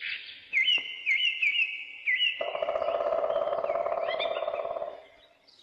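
Small birds chirping, a short rising chirp repeated several times. From about halfway a lower, steady, rapidly pulsing sound joins in and stops shortly before the end.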